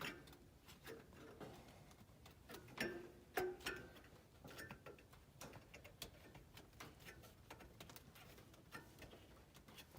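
Faint, scattered light clicks and taps of sheet-metal parts being handled and bent on a gas furnace, with two louder knocks about three seconds in.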